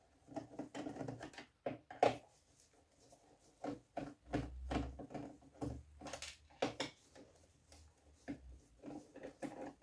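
Scattered light clicks and knocks of a hand screwdriver and metal parts as screws are worked out of an old computer's casing.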